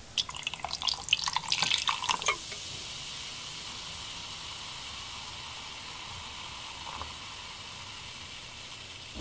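Cola poured into a glass over ice: splashing with sharp clinks of ice for the first couple of seconds, then a steady fizzing hiss as the carbonated foam settles.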